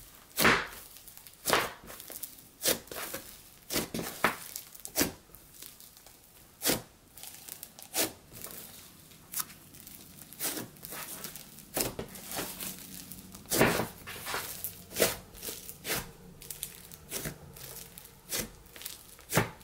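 Thick, fluffy white slime being squeezed and kneaded by hand, giving short crackling, squishing bursts at an irregular pace of about one a second as air pockets are pressed out.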